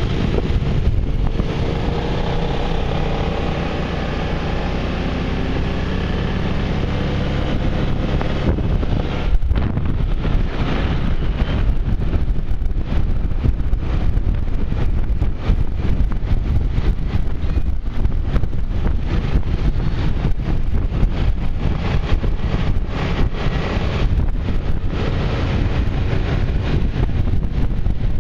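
Maxi-scooter engine running while riding, with wind buffeting on the microphone that becomes the loudest sound after about nine seconds.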